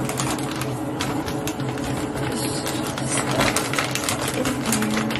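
Disposable paper face towels rustling and crinkling as a stack of them is handled and folded, with dense irregular crackles, over a steady low hum.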